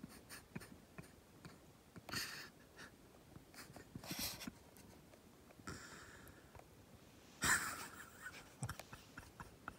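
Short breathy bursts of a man's stifled laughter through the nose, the loudest about seven and a half seconds in, with small clicks and rustles of a jacket between them.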